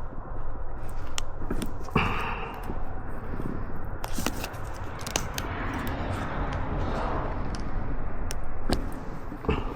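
Metal hand tools and clamp parts being handled while trying to crimp a CV-joint boot clamp: scattered clicks and taps with bursts of scraping, over a steady low hum.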